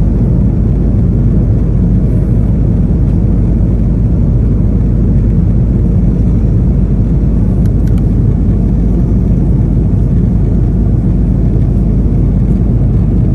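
Steady low rumble of an Airbus A330-200 in its initial climb after takeoff, engine and airflow noise heard from inside the passenger cabin.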